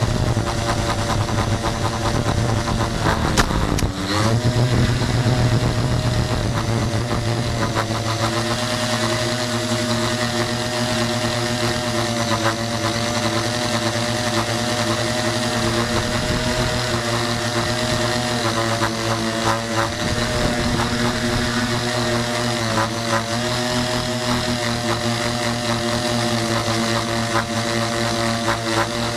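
Tricopter's motors and propellers buzzing in flight, a steady droning hum. Its pitch dips sharply about three to four seconds in and then climbs back, with small wobbles in pitch after that.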